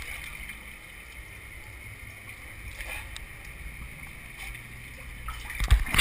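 Water running and sloshing in a narrow concrete culvert as a person moves through it, with a loud thump near the end.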